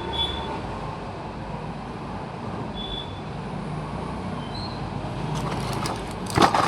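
Steady background hum with a few short high tones, then a run of clicks and rustles about five and a half seconds in, loudest near the end.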